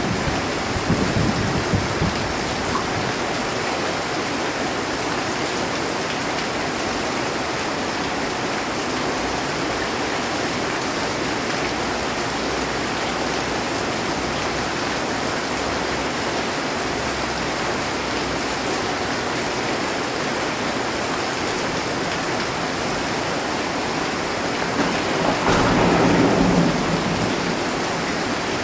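Heavy rain falling steadily on a metal roof, with thunder rumbling briefly in the first couple of seconds and a louder peal of thunder swelling near the end.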